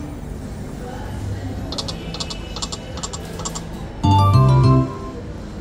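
Poker machine spinning its reels: a quick run of sharp electronic clicks as the reels stop about two seconds in, then a short, loud electronic jingle just after four seconds.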